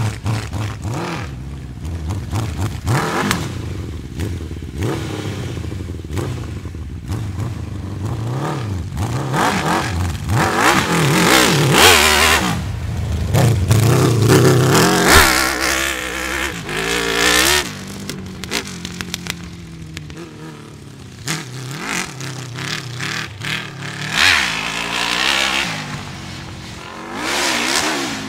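Off-road buggy's Honda CBR1000RR inline-four superbike engine revving as the buggy is driven, its pitch rising and falling again and again, loudest around the middle.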